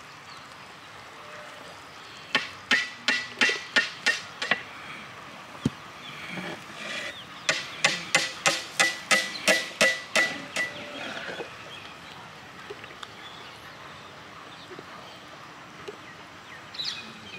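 Metal ladle striking the side of a large aluminium cooking pot as the biriyani rice is turned over. There are two runs of quick, evenly spaced clanks, each with a short metallic ring.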